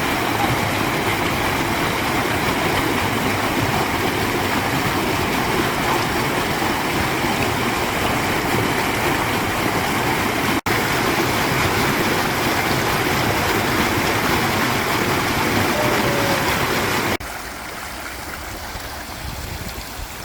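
Valley stream water rushing steadily. It cuts out for an instant about halfway through, and becomes quieter with a few seconds to go.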